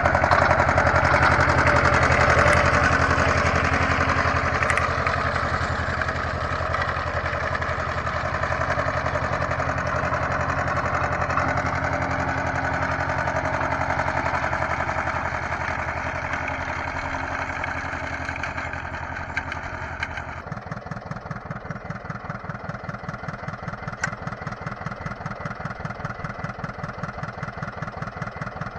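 Renault tractor engine running under load as it drives a Someca sickle-bar mower, the cutter bar clattering over the engine. About twenty seconds in the mower clatter stops and the engine settles to a steady, evenly pulsing idle.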